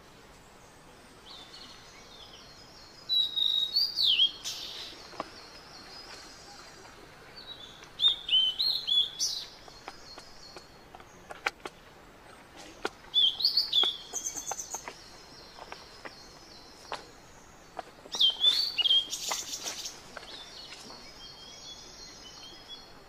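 A songbird singing a short warbled phrase four times, about five seconds apart, with a quieter run of rapid high repeated chirps between them and a few faint clicks.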